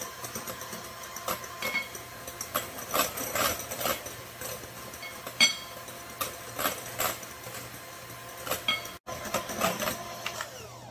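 Electric hand mixer running steadily as its beaters whip egg whites into meringue in a glass bowl, with irregular clicks.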